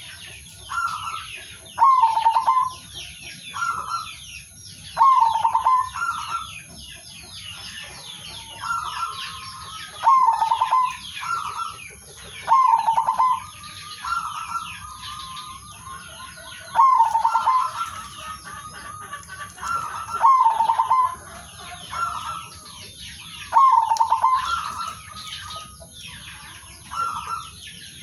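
Male zebra dove cooing its staccato perkutut song in short repeated phrases, one every second or two, with dense high chirping of small birds behind it.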